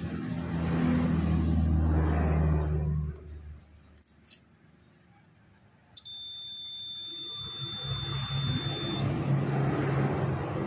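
Digital multimeter's continuity buzzer sounding one steady high beep for about three seconds around the middle, as the probes on the stator's leads find a connection between the run and start windings: the sign that the windings are still shorted together. A low droning rumble is louder at the start and comes back near the end.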